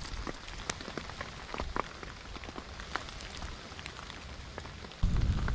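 Rain falling, with many separate drops tapping on a surface over a steady hiss. A sudden low rumble comes in near the end.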